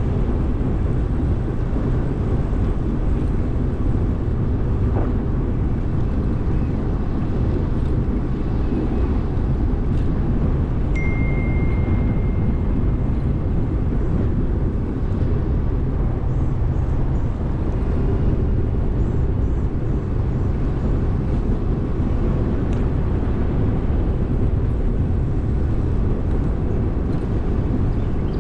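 Steady rumbling noise of riding an e-bike: wind on the microphone and tyres rolling, with a brief high whistle-like tone about eleven seconds in.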